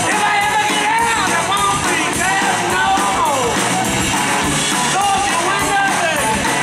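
Live rock band playing through a PA: electric guitars, bass and drums, with a melody line that glides up and down in pitch over the steady band.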